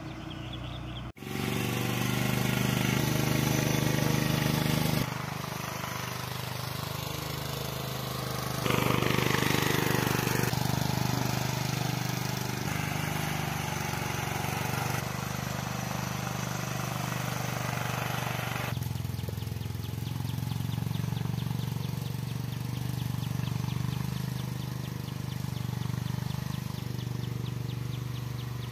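Tractor engine running steadily, a low droning hum that comes in about a second in and gets louder for a couple of seconds about nine seconds in.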